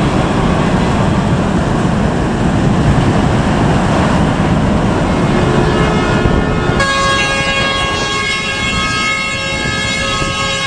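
A steady rushing noise, then about seven seconds in several ships' horns sound together and hold a long, many-toned chord as part of a harbour salute.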